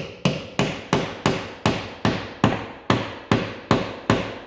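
Claw hammer striking a wooden wedge about three times a second, a steady run of sharp blows each with a short ring, driving the wedge in between a granite backsplash and the wall to split it away.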